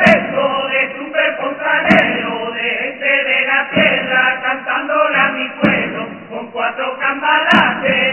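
All-male chirigota group singing together to acoustic guitar, with a short thump about every two seconds.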